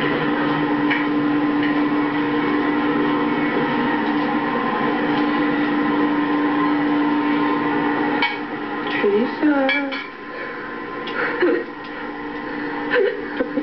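A steady hum with one droning tone that cuts off about eight seconds in, followed by a few sharp knocks and clatter with short squeaky sounds, such as dishes and objects being handled on a kitchen counter.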